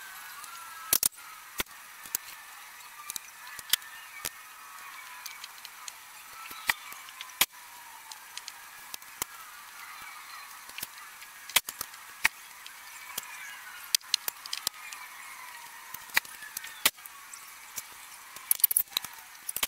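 Vinyl-wrap installation work on a truck door: scattered sharp clicks and taps from tools and handling, with faint squeaky sliding sounds of a squeegee working the film. The sound is thin, with no low end.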